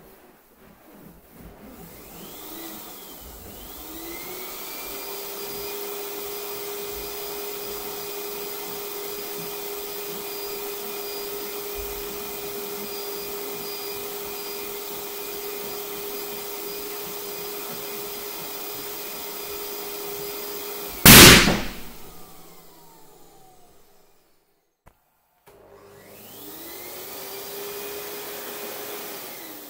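An electric balloon pump starts up, rising in pitch, then runs steadily while inflating a balloon until the balloon bursts with a very loud pop about 21 seconds in. The motor winds down after the pop, and near the end the pump starts up again.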